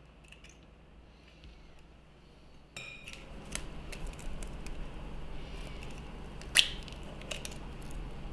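Small clicks and taps of eggshell against glass bowls, with one sharp, loud crack about two-thirds of the way in as an egg is broken open to separate the yolk from the white.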